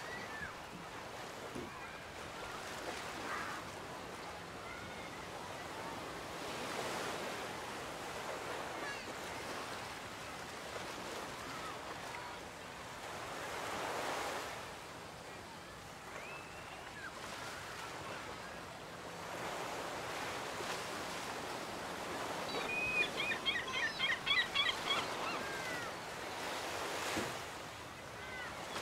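Waves washing onto a beach, swelling and fading every six or seven seconds, with scattered short bird chirps. Late on, a bird gives a quick run of chirps, the loudest moment.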